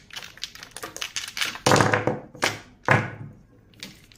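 Small plastic paint jars clicking against each other and knocking on a tabletop as they are handled and set down. A quick run of light clicks gives way to about three louder knocks.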